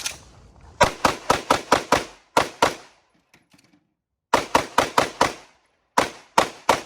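Pistol shots fired in fast strings. There is a burst of about nine shots, a short pause, about six more, and then a final three.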